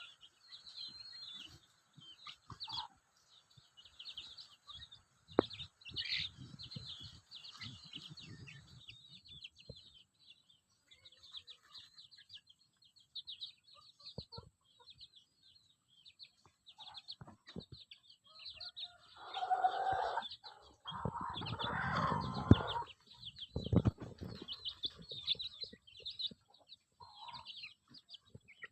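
Young chicks peeping with many short, high-pitched chirps throughout. About two-thirds of the way in, a louder, lower chicken call lasts for a few seconds.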